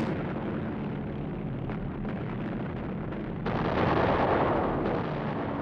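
Battle sound effects: a continuous rumble, then a sudden, louder blast of an explosion about three and a half seconds in that lasts over a second before easing.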